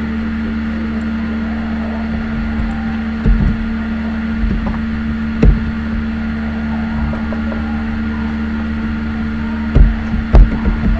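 Steady electrical hum and buzz from the recording setup, with a handful of short soft knocks and clicks from computer keyboard keys and the mouse: a few in the middle, two more near the end.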